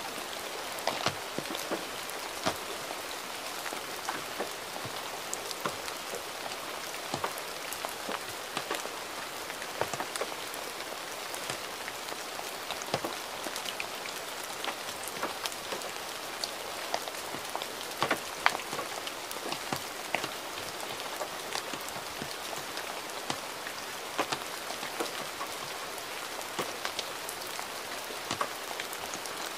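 Gentle rain falling steadily, with many separate drops tapping sharply at irregular moments through the even hiss.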